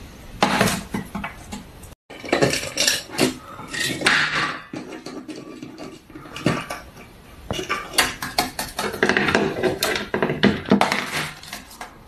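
Small wooden boxes knocking and clattering on a tabletop as a parrot pushes and pokes at them, in a run of irregular sharp knocks.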